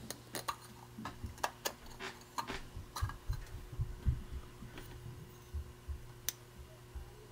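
Scattered light clicks and small knocks as a rubber gasket is worked off the metal case of an old fuel gauge by hand, over a faint steady low hum.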